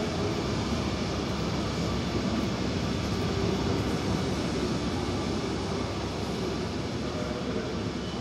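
Roundhouse turntable rotating with a steam locomotive on it: a steady mechanical rumble that eases slightly near the end.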